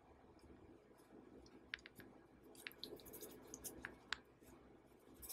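Faint handling of seasoned flour as hands scoop, fold and press it onto a piece of chicken in a glass bowl: soft rustling with scattered small clicks and ticks, more of them from about a second and a half in.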